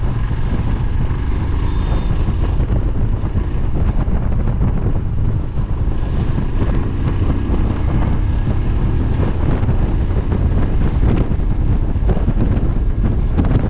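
Wind buffeting the microphone, steady and heavy, over the Royal Enfield Himalayan's 411 cc single-cylinder engine running as the motorcycle rides along.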